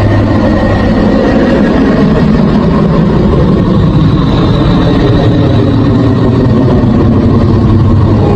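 Sonified space audio presented as the sound of Neptune's howling winds: a loud, steady, dense drone with a strong low hum and a hiss above it, with faint high tones that barely change.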